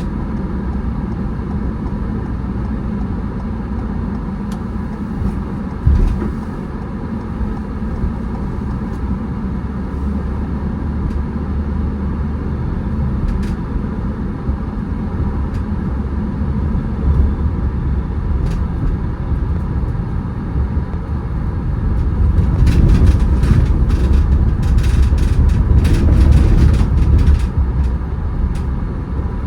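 Car being driven on the road: a steady low rumble of engine and tyres. There is a single thump about six seconds in, and the rumble grows louder near the end with a run of crackles and clicks.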